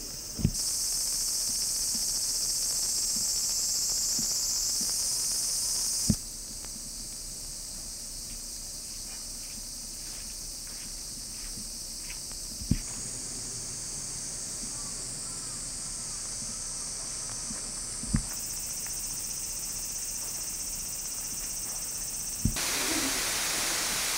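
A steady, high-pitched insect chorus, its level stepping up and down with short clicks at each cut. Near the end the rushing of a small garden waterfall comes in under it.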